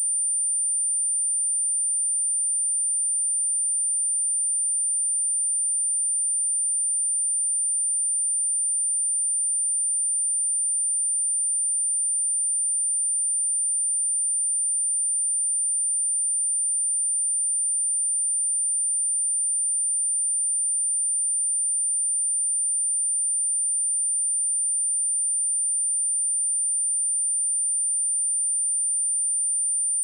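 A pure 9168 Hz sine-wave test tone: one steady, high-pitched whistle held at a constant level. It is a speaker test and speaker-cleaning tone.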